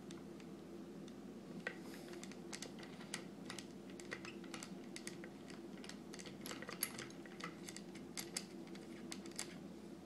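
Faint, irregular small clicks and ticks as the jig's locking release lever is screwed by hand back onto its threaded post over a washer, with a cluster of clicks near the middle and again towards the end.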